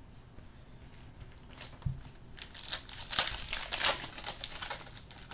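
A foil trading-card pack wrapper crinkling as it is handled and torn open. There is a soft knock about two seconds in, then a dense burst of crackling that eases off near the end.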